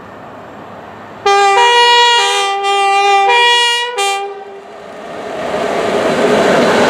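Two-tone horn of the leading Class 86 electric locomotive in a double-headed pair, sounding for about three seconds with its higher note joining twice. After the horn cuts off, the rumble of the container train on the rails grows louder as it approaches.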